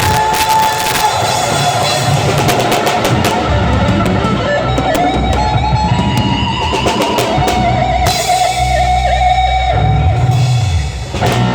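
Live band playing an instrumental passage: guitar over a drum kit with cymbal crashes, a held note sliding up partway through and the band dropping back briefly near the end.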